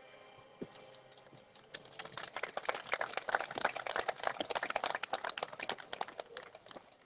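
Small crowd of spectators clapping. The applause picks up about two seconds in, grows denser, then thins out near the end; the faint tail of fading music is heard at the very start.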